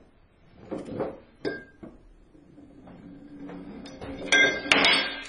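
BBs from a homemade pump air gun striking aluminium tubes on a shelf: a few sharp metallic clinks early on, then a loud clatter of metal hits with ringing about four seconds in as the tubes are knocked over.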